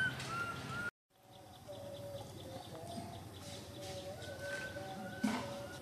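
Birds calling in the trees: a few short, high, arched chirps, then a brief dropout about a second in, then repeated short low cooing notes mixed with higher chirps. A single sharp knock comes near the end.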